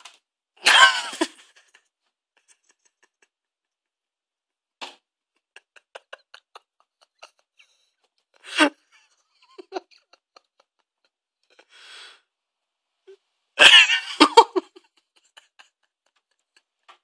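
Three loud, breathy bursts of stifled laughter, the longest near the end. Between them come faint light taps and scratches from a cat pawing at a wooden door.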